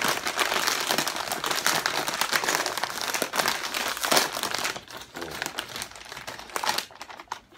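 Bag of Cape Cod kettle-cooked potato chips crinkling as it is shaken and pulled open at the top. The crinkling is dense and loud for the first four and a half seconds or so, then softer with scattered crackles.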